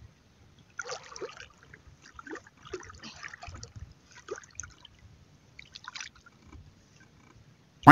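Shallow sea water sloshing and trickling softly around a person wading chest-deep, with small irregular splashes and gurgles.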